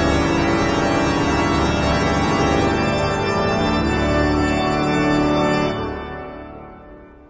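Background organ-style music playing held chords, fading out over the last second and a half.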